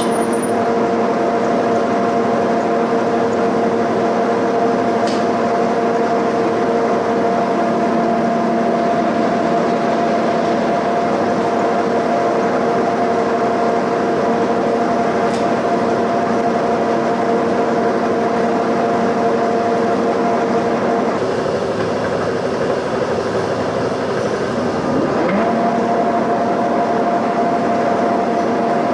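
Milling machine spindle running steadily with a cutter machining down the cast iron valve guide bosses of a cylinder head. The steady hum carries several tones. About three-quarters through, the tone changes with a short rising whine before it settles back.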